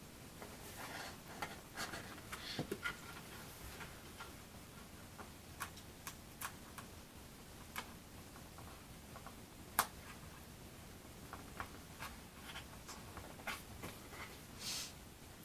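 Scattered light clicks and taps of small parts and hand tools being handled on a workbench, with short stretches of rustling; one sharper click a little under ten seconds in is the loudest.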